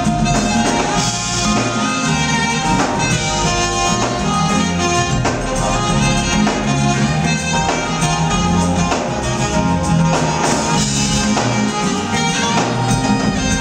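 Live smooth-jazz band: saxophone playing the lead melody in held notes over electric bass, keyboards and a drum kit keeping a steady beat.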